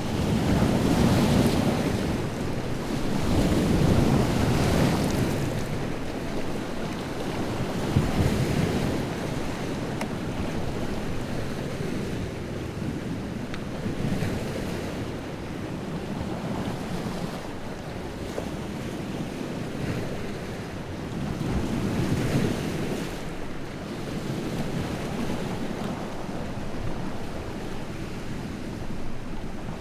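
Wind-driven lake waves breaking and washing on the shore, a continuous rush of surf that swells louder every few seconds, strongest near the start and again around two-thirds of the way through, with one sharp splash about eight seconds in. Wind blows throughout.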